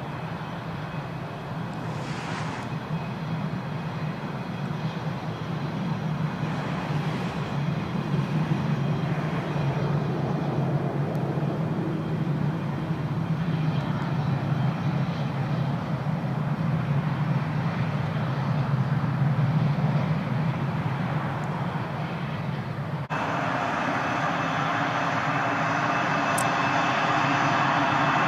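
Twin F404 jet engines of a Swiss F/A-18 Hornet running at low power while it taxis: a steady jet rumble with a faint whine, slowly growing louder. About 23 seconds in the sound cuts abruptly to louder jet engine noise with steady whining tones that keeps rising.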